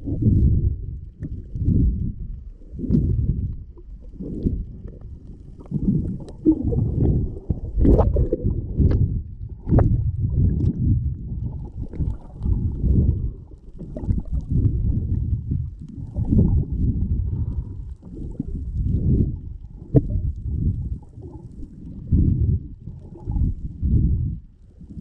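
Underwater sound picked up by a submerged camera moving through the water: a low, muffled rumble of water rushing past that swells and fades every second or two, with a few sharp clicks.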